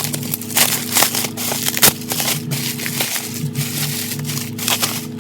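Plastic packaging and bubble wrap crinkling and crackling in irregular bursts as a package is torn open by hand, over faint steady background music.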